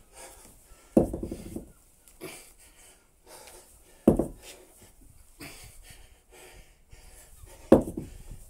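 Kettlebell set down on concrete paving three times, about three and a half seconds apart, between snatch reps, with heavy panting breaths in between.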